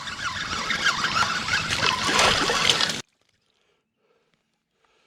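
Water splashing and trickling for about three seconds, then the sound cuts off abruptly into dead silence.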